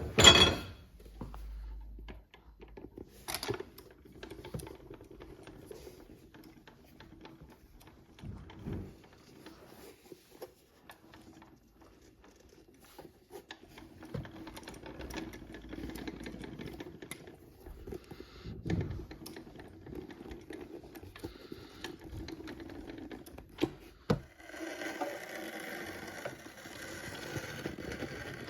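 Industrial sewing machine stitching boot leather: a steady motor hum with fast, light ticking from the needle, and a few sharp knocks. Near the end a louder, hissing machine noise joins in.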